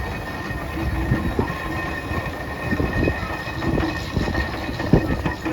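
Steam traction engine running, a steady mechanical rumble with irregular knocks and a steady high tone.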